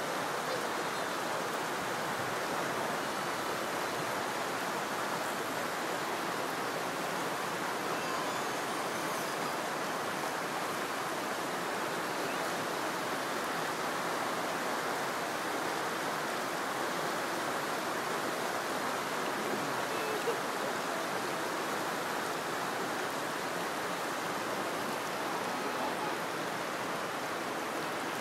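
Steady rushing of a mountain stream running over rocks, an even, unbroken wash of water noise.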